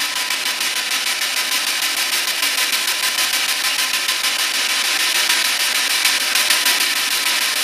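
Spirit box sweeping through radio stations: a steady rush of static chopped by a fast, even stutter, with no clear voice coming through.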